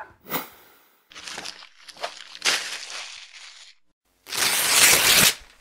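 Video transition sound effects: a quick swish, then a couple of seconds of paper-like crinkling and crackling, then a louder rush of noise lasting about a second as a paper sheet peels away on screen.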